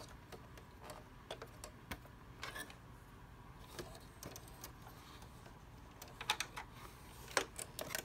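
Faint scattered clicks and taps of a thread spool and thread path being handled while the thread colour is changed on a stopped home embroidery machine, over a low steady hum. The taps come closer together near the end.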